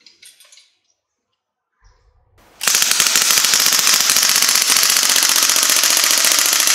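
Northeast Sten MkV gas blowback airsoft submachine gun, running on propane, firing one long full-auto burst. A rapid, steady stream of shots starts about two and a half seconds in and keeps going: a mag dump that empties the magazine.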